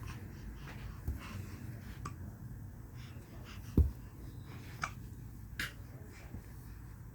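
A cat hiccupping: short, sharp hics about once a second, with one louder, deeper thump about halfway through.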